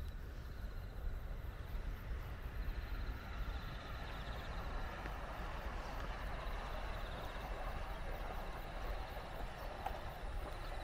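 Footsteps on a paved footpath over a steady outdoor rush with a low rumble, and a faint high pulsing trill in the background.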